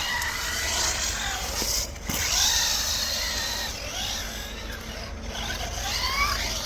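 Electric radio-controlled monster trucks driving, their motors whining up and down in pitch as they speed up and slow down, over a hiss of tyre and drivetrain noise.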